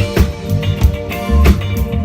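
A band playing a groove on drum kit and guitar, with a steady beat of drum hits over held low notes.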